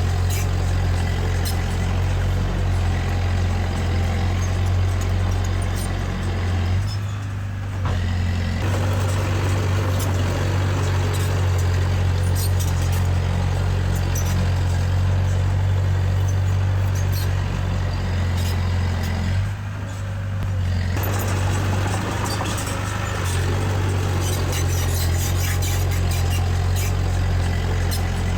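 Heavy diesel construction machinery running steadily under load, with a deep engine hum and light clicking throughout. It eases off briefly twice, about a third of the way in and again about two-thirds in.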